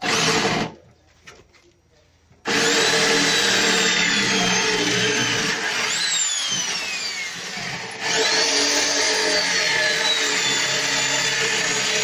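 Corded electric drill with a step bit boring into the sheet-steel frame of a barbecue grill. It gives a short burst, pauses about two seconds, then runs steadily with its whine sagging under load, with a quick rev-up and drop about halfway through. The step bit is struggling to cut through the steel.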